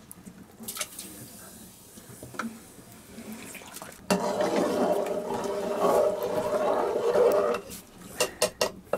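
A metal utensil stirring and scraping inside a metal cooking pot: scattered light clicks at first, then from about four seconds in a loud, steady scraping that stops suddenly near eight seconds, followed by several sharp taps of metal on metal.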